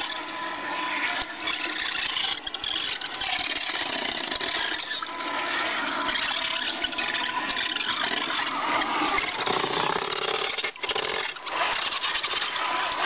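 Radio-controlled Tamiya CC01 Pajero crawler's brushed 65-turn motor and gearbox running steadily as it drives through a puddle and along a wet trail.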